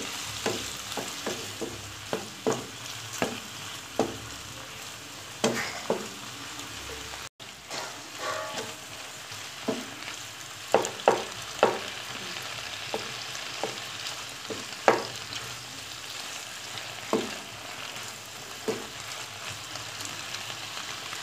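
Boneless chicken cubes sizzling in oil in a frying pan, with a spatula stirring them and knocking against the pan every second or so.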